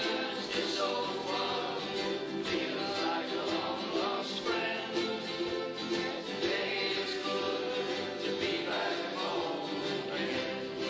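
Ukulele playing chords as song accompaniment, steady and continuous.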